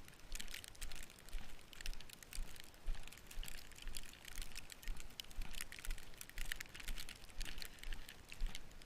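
Footsteps crunching through deep snow, about two steps a second in an even walking rhythm.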